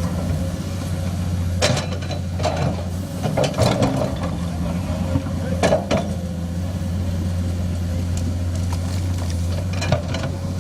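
Komatsu hydraulic excavator's diesel engine running steadily under work, with a few sharp clanks and rock clatters from the bucket digging in rocky ground, the loudest about two and six seconds in.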